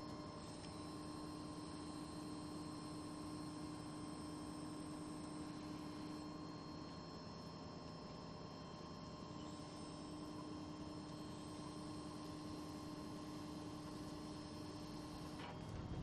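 A steady hum made of a few held tones over faint background noise.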